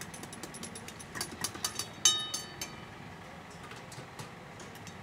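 Metal spatula scraping and clicking against an iron karahi wok as food is stirred, with one loud ringing clang about two seconds in, over a steady kitchen hum.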